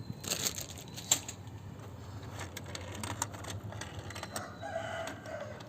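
Plastic toy race-track set clicking and rattling, with irregular small clicks and knocks of its parts and cars over a low steady hum.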